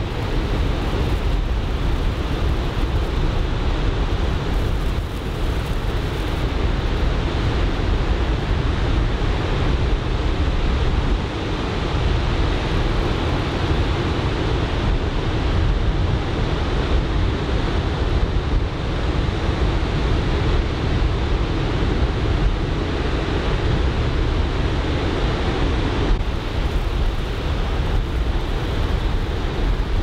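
Wind buffeting the microphone in a steady low rumble, over the continuous wash of breaking surf.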